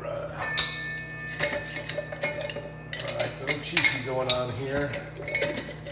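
Kitchen utensils clinking and knocking against a stainless steel mixing bowl in an irregular run of clatters. The bowl rings briefly from about half a second in.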